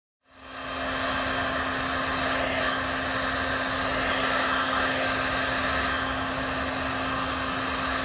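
Professional heat gun running steadily: an even rush of hot air with a steady low hum underneath. It is aimed close to a vinyl dealer decal on car paint, softening the adhesive so the decal peels off in one piece.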